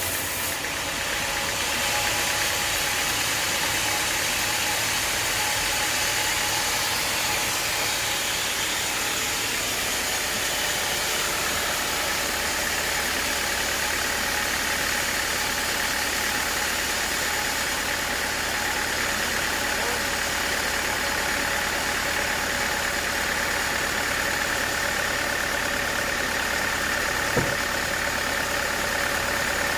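Sawmill's engine and saw running steadily through acacia wood, with a high tone that rises slightly about ten seconds in. A single sharp tick near the end.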